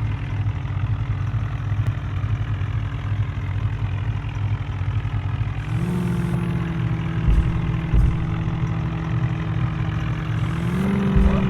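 A vehicle engine running steadily. It revs up to a higher, steady speed about halfway through, then rises again near the end, with a few dull low thuds in between.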